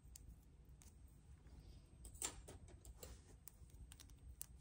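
Mostly near silence with faint small plastic clicks and taps, a short cluster of them a little after two seconds in: plastic nail swatch tips being handled and swapped on a swatch stick.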